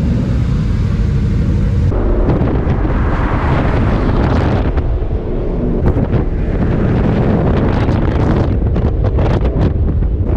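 Car running with a heavy low rumble, with wind buffeting the microphone; the sound changes abruptly about two seconds in.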